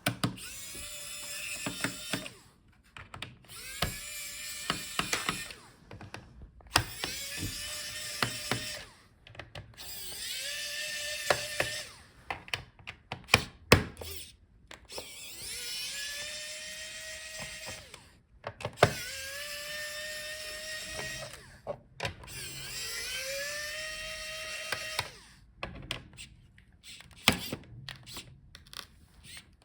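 An electric screwdriver backing out a laptop's bottom-case screws in about seven short runs. Each run is a whine that rises in pitch as the motor spins up, with small clicks of the bit and screws between runs.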